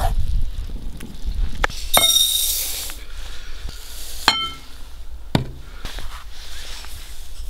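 Glass clinking as dry rice is poured from a glass jar into a glass bowl: a few sharp clinks that ring on briefly, the loudest about two seconds and about four seconds in, with a short hiss of grains pouring onto the glass.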